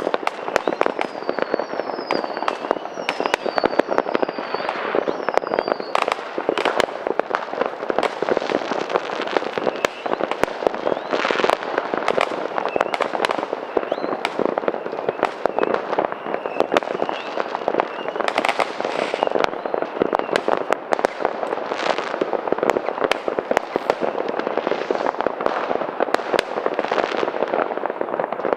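Dense New Year's fireworks: a continuous barrage of bangs and crackling from rockets and firecrackers. In the first few seconds there are about five short whistles, roughly one a second.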